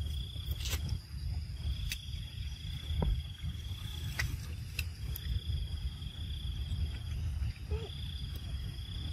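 An insect trilling on one steady high pitch, in phrases of about two seconds with short breaks between them, over a steady low rumble and a few faint clicks.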